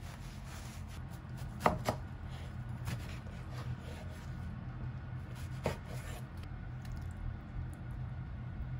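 Kitchen knife cutting boiled spinach on a wooden cutting board: a few sharp knocks of the blade against the board, the loudest pair about one and a half seconds in and another near six seconds, with lighter taps between. A steady low hum runs underneath.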